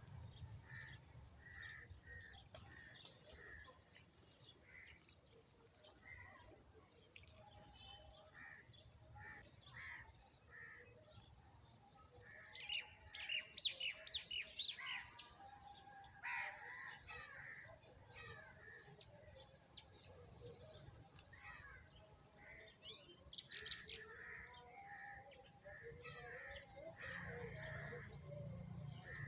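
Sparrows chirping: many short, repeated chirps, getting busier and more crowded about halfway through and again later on.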